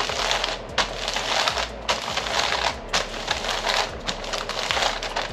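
Parchment paper crinkling and rustling as hands press and smooth it down over a meatloaf, in a string of short bursts.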